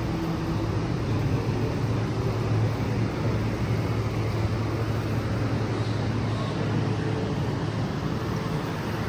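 A steady low hum over a constant rushing noise, with no distinct events.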